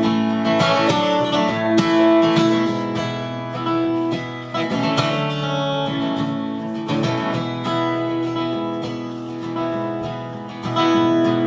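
Acoustic guitar strumming and picking chords, with notes left ringing: the instrumental intro to a song, before the singing comes in.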